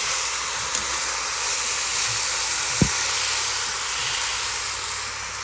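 Seasoned goat meat sizzling and hissing steadily in a pot of hot oil and burned curry, with one sharp knock about three seconds in.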